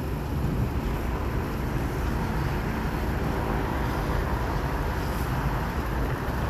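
Steady city traffic rumble with wind noise on the microphone.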